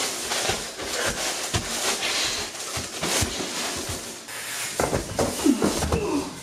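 Scuffling and repeated thuds of two men grappling on floor mats, with short grunts of effort about five seconds in.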